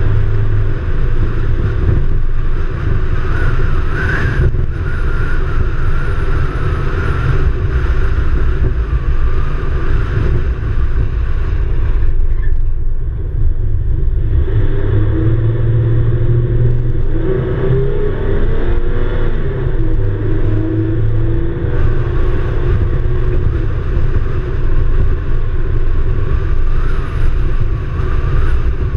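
SUV driving along a road: a loud, steady rumble of road and wind noise with the engine, whose pitch shifts up and down a little about halfway through.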